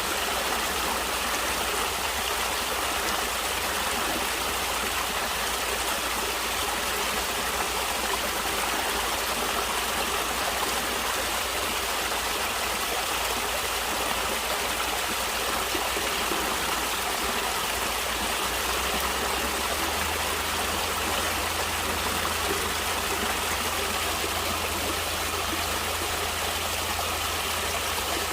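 A stream of water flowing steadily over rocks, a continuous even rush. A low rumble underneath grows a little stronger about two-thirds of the way through.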